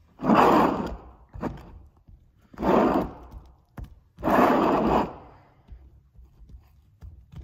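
Hands rubbing and brushing three times, each stroke under a second long and about two seconds apart, with faint handling noise between.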